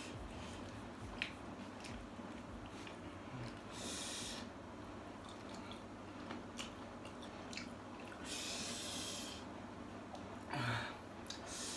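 A person chewing a mouthful of fried chicken with small wet mouth clicks, breathing hard through the nose three times: briefly about four seconds in, for about a second a little after the eight-second mark, and again near the end. He is eating very spicy sambal-smashed fried chicken.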